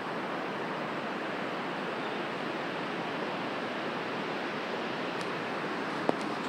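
Steady rushing of a whitewater mountain river's rapids, with a single short click near the end.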